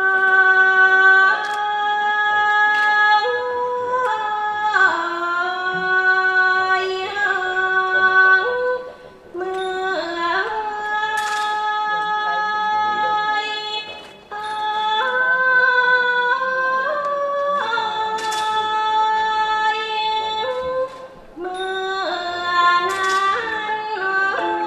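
Thai classical singing for a khon dance-drama: a single high, woman's voice holds long notes that step up and down in pitch, in phrases broken by short pauses. A few sharp high strikes sound over it.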